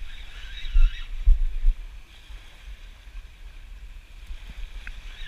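Wind buffeting the microphone in uneven low rumbles, heaviest in the first two seconds, with a faint high wavering sound during the first second.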